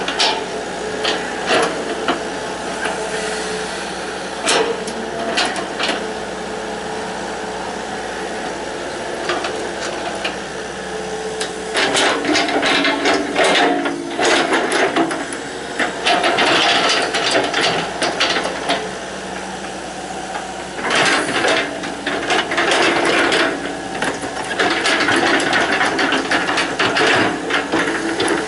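Hitachi EX120 hydraulic excavator at work: its diesel engine runs steadily under repeated clanks and knocks, with several louder stretches of rattling and grinding as it digs.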